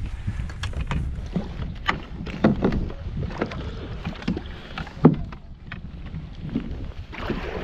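A kayak being paddled: irregular paddle splashes and sharp knocks, the loudest about five seconds in, over a steady low wind rumble on the microphone.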